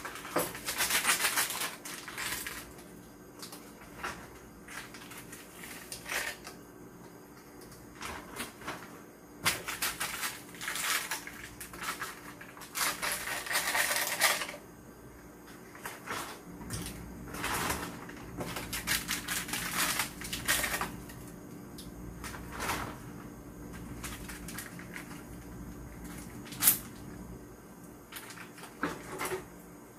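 Plastic food packaging crinkling and rustling in bursts as packets are opened and handled, with scattered light clicks and knocks and one sharp click near the end.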